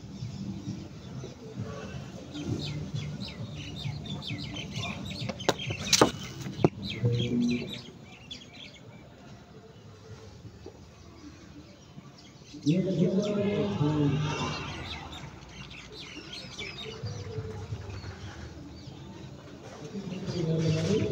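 Outdoor birdsong, many small birds chirping, with a single sharp crack about six seconds in and a loud drawn-out call lasting about two seconds a little past halfway.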